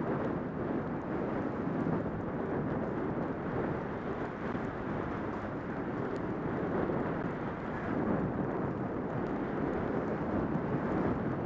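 Steady rushing wind on a helmet-mounted camera's microphone during a downhill ski run, mixed with the hiss of skis sliding on packed snow.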